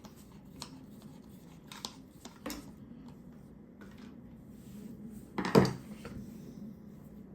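Light clicks and taps of metal-and-plastic screwdrivers being handled, with a louder clack about five and a half seconds in.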